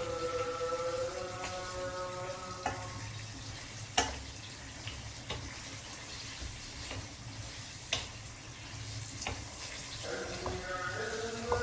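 Kitchen work: a steady hiss with a handful of sharp clinks and knocks, the loudest about four seconds in. Soft background music fades out at the start and comes back near the end.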